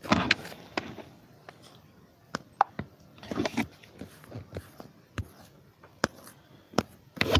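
Irregular clicks and knocks of handling close to the microphone, in small clusters near the start, in the middle and at the end.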